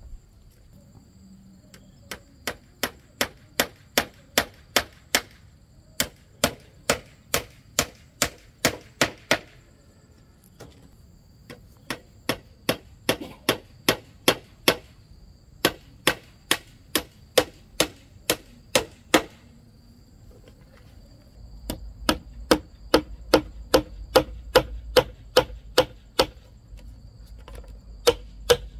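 Sharp, even chopping strokes, about three a second, in runs of several seconds broken by short pauses.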